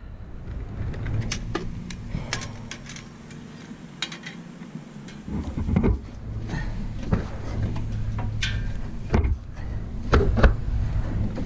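A walk-behind stump grinder's small gasoline engine running with a steady hum that fades for about a second around four seconds in, under scattered sharp clicks and knocks.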